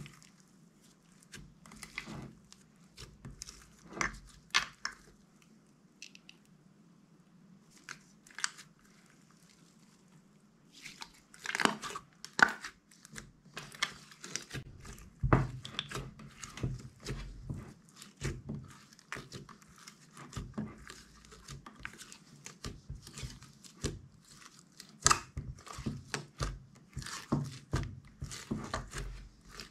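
Hands kneading and stretching slime, making sticky clicks and pops: scattered at first, then coming thick and fast from about a third of the way in.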